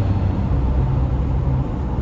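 Steady road and engine noise inside a Subaru's cabin while driving at highway speed, mostly a low rumble.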